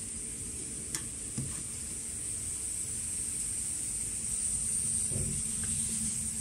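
Steady machine-room hum with a constant high hiss, and two light clicks about a second in.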